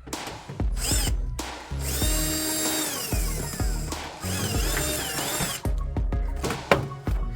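Power drill running in a sustained burst of a few seconds, its whine shifting and dropping in pitch, as screws are driven out of a washing machine being taken apart; background music with a steady beat plays throughout.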